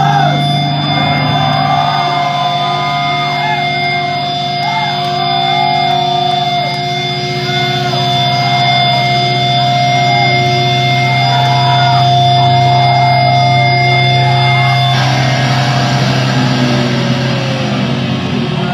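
Electric guitar amplifier feedback droning on several steady pitches after the song has ended, cutting off about fifteen seconds in, with the crowd cheering and yelling over it.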